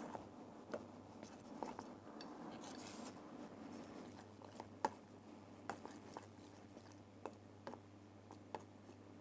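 Metal spoon stirring melting white chocolate in a stainless steel bowl over a water bath: faint scraping with scattered light clicks of the spoon against the bowl, over a low steady hum.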